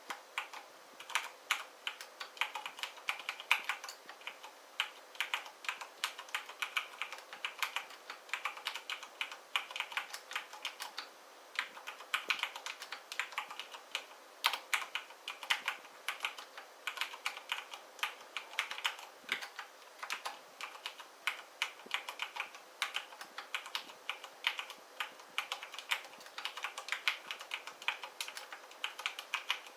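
Continuous typing on a mechanical keyboard: a fast, uneven stream of key clacks as keys are pressed and bottom out.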